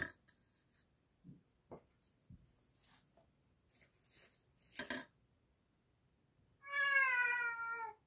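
A few faint clicks and a short rustle of handling, then a cat meows once: one long call, falling slightly in pitch near the end.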